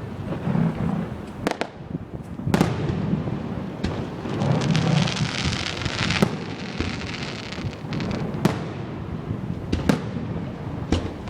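Fireworks going off: sharp bangs every second or two, with a stretch of dense crackling in the middle.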